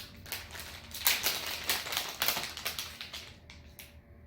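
Hard plastic packaging being handled and opened: a quick run of clicks and crackles, loudest in the middle and thinning out near the end.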